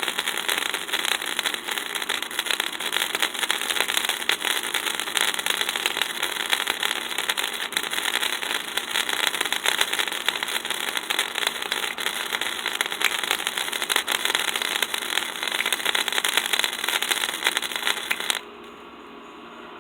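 Electric arc welding: a steady, dense crackle that cuts off suddenly near the end, followed by a low hum.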